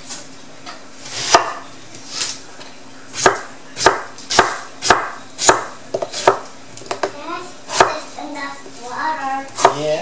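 Kitchen knife chopping peeled winter melon (wax gourd) into chunks on a wooden cutting board: about ten sharp chops at an uneven pace.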